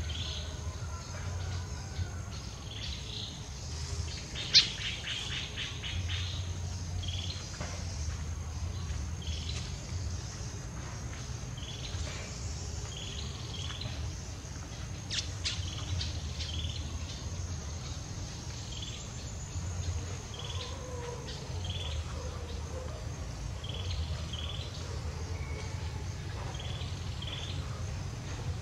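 Outdoor forest ambience: a steady high insect drone, with short bird chirps repeating every second or so. A loud sharp click comes about four and a half seconds in, followed by a quick rattle.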